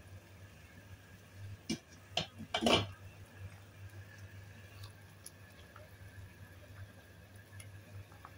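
Three or four short knocks close together about two seconds in, over a steady low hum.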